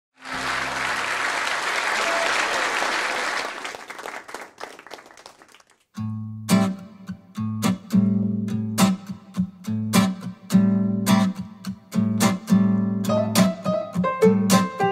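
Applause that dies away over the first few seconds. About six seconds in, an acoustic guitar starts a steady, driving strummed rhythm with deep bass notes, and piano notes join near the end.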